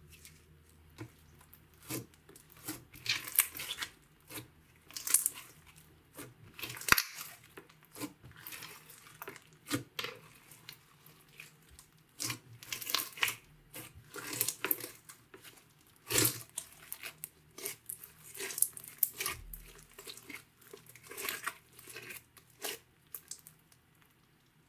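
Hands pressing and kneading a sticky green glitter slime mixed with small foam beads: irregular crackling and popping as the slime pulls apart and squashes down, with a few louder pops.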